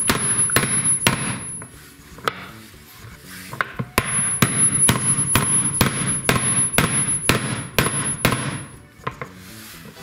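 Hammer blows on a steel drift, driving a 203 ball bearing into its seat in a washing-machine tub's hub, at about two to three sharp metal knocks a second. A first run of blows stops about two seconds in; a longer run starts again about two seconds later and ends shortly before the end.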